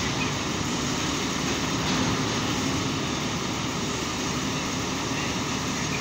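Truck-mounted mobile crane's diesel engine running steadily.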